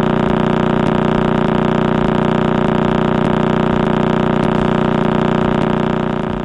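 Pulsar radio signal converted into audio: a steady buzzing drone with many overtones, fading out near the end.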